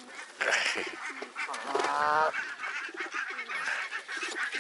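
A crowd of waterbirds calling close by: repeated short low calls, with a louder, longer pitched call about two seconds in.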